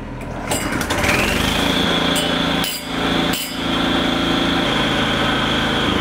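Petrol brick saw's engine starting and running up to speed, its high whine rising over about a second and then holding steady. It is being tried after a fix to its pull-starter, which the owner hopes had just slipped.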